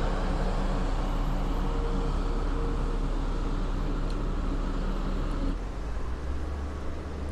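Transit bus engine running as the bus pulls away from the stop, a steady hum that drops away about five and a half seconds in, leaving a lower background drone.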